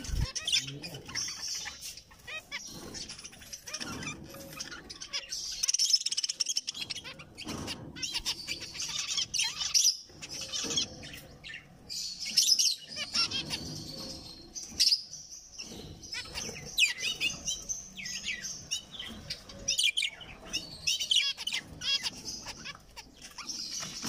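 Zebra finches chirping and calling continuously in short, rapid notes, with scattered sharp clicks.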